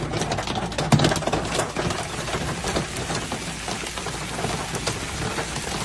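Heavy downpour: a dense steady hiss of rain with many sharp ticks of drops striking hard surfaces, the hardest cluster about a second in.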